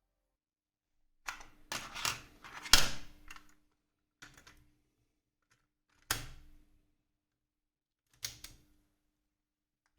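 A series of sharp mechanical clicks and clunks, each with a brief low ring: a quick cluster about a second in, then single clicks at irregular intervals of about two seconds.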